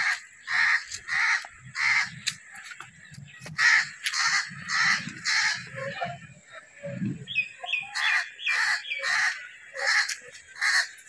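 A bird calling harshly over and over, about two calls a second, in two runs with a short break between them. A few brief high chirps come in the break.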